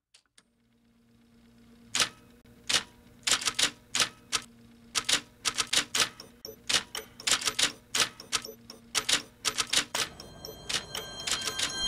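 Manual typewriter keys being struck one after another in an uneven typing rhythm, starting about two seconds in. Music fades in near the end.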